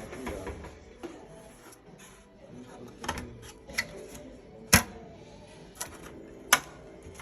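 GE clothes dryer running with a faint low hum and irregular sharp clicks: about five clicks spaced a second or so apart, starting a few seconds in, the two loudest past the middle.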